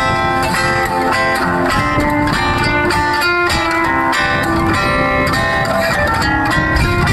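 Background music: plucked guitar playing a quick run of changing notes.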